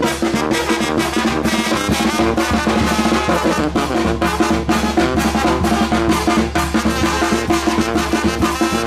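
Mexican banda brass band playing: trumpets and trombones over a steady drum beat.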